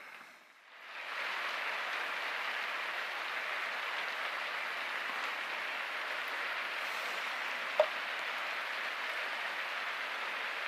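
Heavy rain, really hammering down: a steady hiss that swells in about a second in. A single short click comes about three-quarters of the way through.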